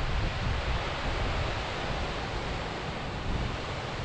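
Wind buffeting the camera microphone: a steady rushing noise with an uneven, gusting low rumble.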